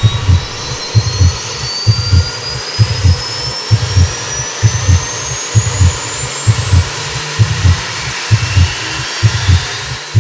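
Sound-designed soundtrack of heartbeat-like double thumps, about one pair a second, under a steady rushing noise with a high whine that rises slowly and steadily in pitch.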